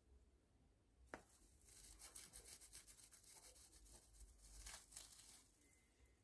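Hamster scrabbling through loose wood-shaving bedding: a faint, rapid, dry rustling that starts about two seconds in and fades near the end, after a single click about a second in.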